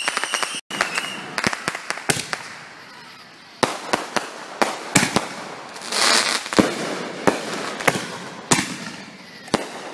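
Consumer fireworks going off: aerial shells bursting with a string of sharp bangs and crackles, and a longer hissing burst about six seconds in. A high whistle stops about a second in.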